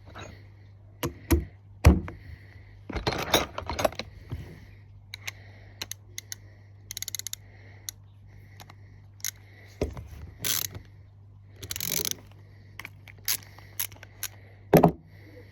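Socket ratchet clicking in short irregular runs while undoing the nuts on a four-stroke lawnmower carburettor, mixed with sharp clinks and knocks of metal tools and parts.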